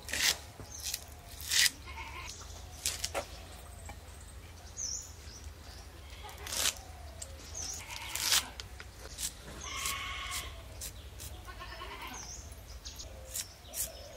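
Scattered sharp knocks and clicks, with an animal call lasting about a second roughly two-thirds of the way through.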